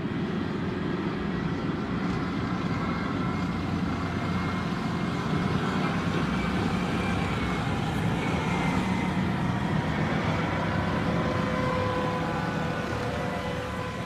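Steady heavy engine running, a dense low rumble with faint, held whining tones above it.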